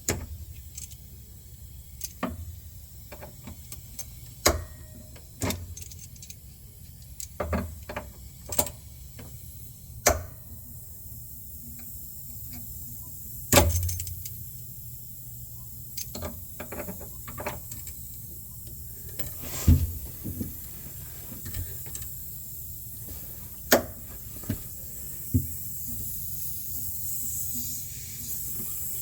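Scattered sharp metallic clicks and clinks of hand tools and pliers being handled on copper refrigeration tubing, over a faint low hum. Over the last few seconds a steady hiss builds: pressurized air escaping from the line.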